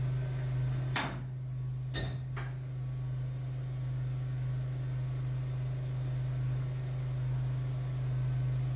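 Steady low hum of machinery running, with two sharp knocks about a second apart near the start.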